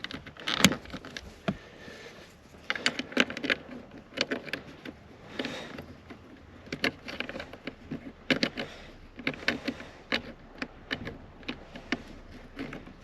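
Irregular clicks and light knocks of small car interior parts being handled and fitted by hand, with a few sharper clicks scattered through, as a part that fits only one way is lined up on its notch.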